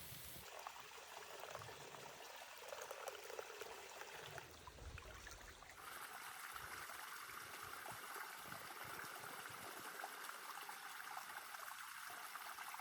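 Faint running water, like a stream trickling, heard as a steady hiss that changes character abruptly twice, at about half a second and about six seconds in.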